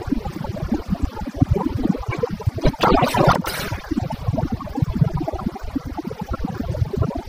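BMW F800GS parallel-twin engine idling with an uneven low pulsing, with a brief rush of noise about three seconds in.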